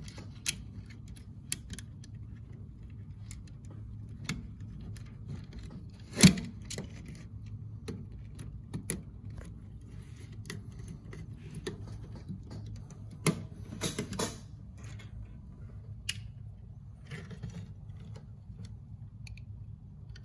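Scattered small clicks and taps of a tester screwdriver and ferruled wires being worked into the plastic screw terminals of a Siemens RDF340 thermostat, over a faint steady low hum. A sharper knock comes about six seconds in, and a short run of clicks around thirteen to fourteen seconds.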